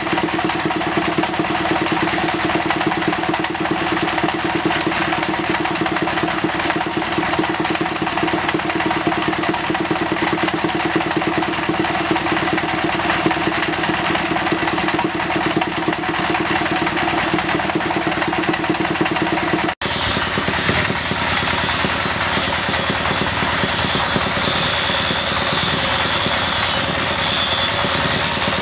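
Woodworking power tools running steadily: first a motor with a strong low hum and fast, even pulsing. Then, after an abrupt cut about two-thirds of the way through, a different machine with a high whine over a noisy rush.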